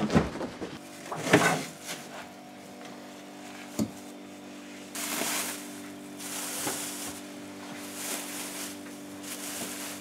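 Handling sounds at a small refrigerator: a clunk about a second in as the door is worked, a lighter knock a little later, then a plastic bag crinkling in several short bursts as it is pulled back from a bowl set on the floor. A steady low hum runs underneath.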